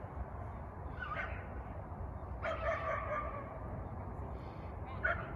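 Dog barking three times, a couple of seconds apart, with the middle bark the longest.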